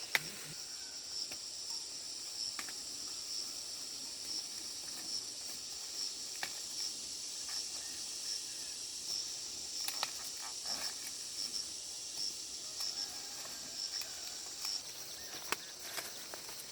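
Insects trilling steadily at a high pitch, with a chirp pulsing about every three-quarters of a second until it stops near the end. Occasional short sharp clicks or knocks.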